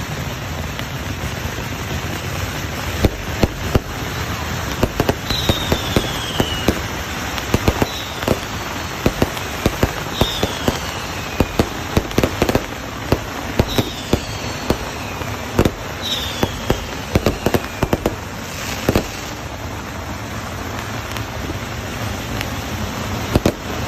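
Fireworks and firecrackers going off: a steady crackle with many sharp bangs, and about five falling whistles spread through it.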